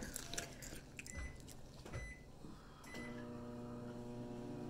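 Microwave oven being started: three short keypad beeps about a second apart, then the oven begins running with a steady hum about three seconds in.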